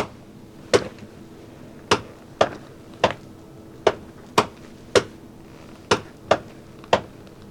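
Tesla Model 3 front door check strap popping as the door is swung open and shut: a series of loud, sharp clicking pops, several per swing, some in quick pairs. The pops are the sign of a failing check strap, which lubrication did not cure.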